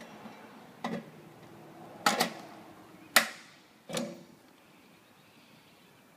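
Hand pop-rivet gun squeezed on a steel quad gutter, giving four sharp snaps about a second apart as the rivets set and their mandrels break. The loudest snap rings briefly in the sheet metal.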